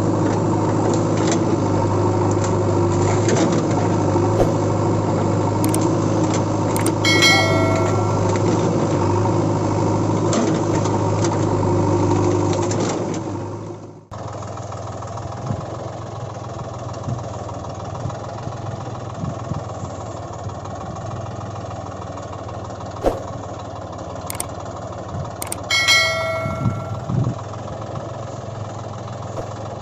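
Steady engine-like running hum that fades out about halfway through, followed by a quieter steady hum. Two short bell-like chimes ring out, one about seven seconds in and one near the end.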